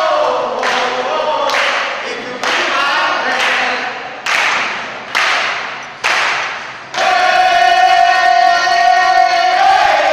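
A group of people singing together in chorus, marked by sharp beats about once a second, then holding one long sustained note from about seven seconds in.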